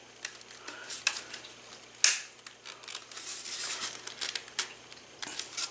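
Plastic slot car track sections being handled and clipped together: scattered clicks and scraping, with one sharper click about two seconds in.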